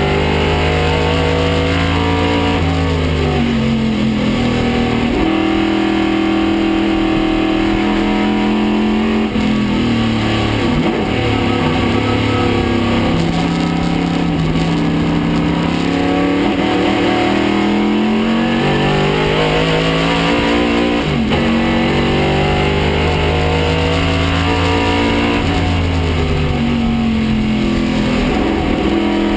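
Chevrolet 302 cubic-inch V8 of a 1969 Camaro Trans-Am race car at racing pace, heard from inside the stripped cockpit. It revs up hard through the gears and drops sharply on lifts, braking and downshifts, several times over.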